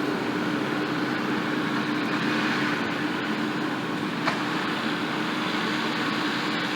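Case skid steer's diesel engine running at a steady speed, with one small click about four seconds in.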